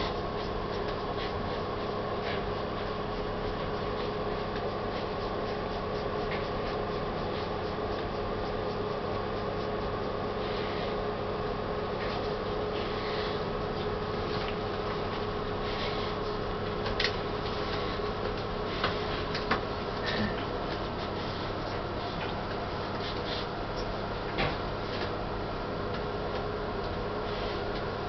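A steady machine hum, like a ventilation fan, with a held mid tone. Over it comes faint scratching and a few sharp clicks in the second half, from a southern tamandua rubbing its snout along a wooden branch and gripping it with its claws.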